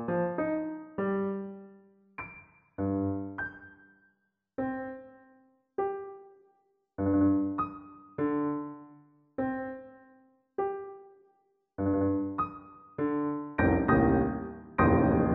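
Slow solo piano music: chords struck about once a second, each left to die away with silence between, growing fuller and more continuous near the end.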